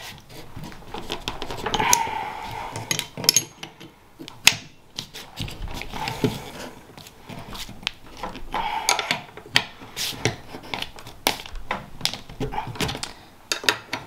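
A wrench clicking and clinking on the metal fittings of an air compressor pressure-switch manifold as the regulator is worked loose, in a series of sharp, irregular clicks. The fittings' threads are coated in sealant, so they turn stiffly.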